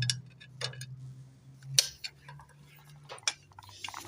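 Metal hand tools clinking and tapping against rear drum brake hardware while a tool is fitted under a brake shoe C-clip: a handful of sharp metallic clicks, the loudest about two seconds in.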